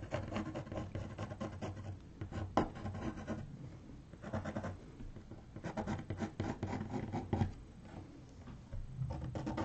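Pencil scratching across a canvas board in bursts of short strokes, with brief pauses between them.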